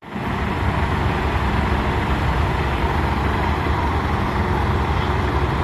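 Long-boom excavator with a vibratory sheet-pile hammer running, a loud, steady low drone of heavy machinery.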